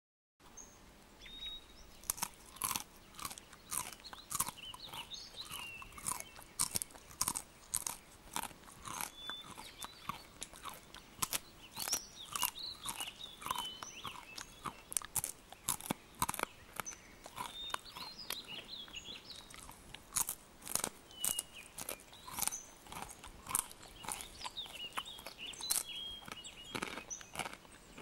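A hairy caterpillar chewing through a leaf edge: a fast, irregular series of sharp crunching clicks, several a second, as its jaws bite off pieces of leaf.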